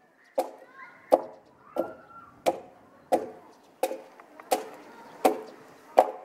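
Axe chopping into a timber beam in steady, even blows, about three every two seconds: nine sharp wooden knocks.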